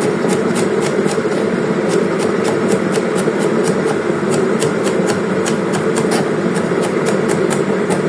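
Kettle heating water on the stove: a steady, loud rushing rumble with fast, irregular light ticking over it.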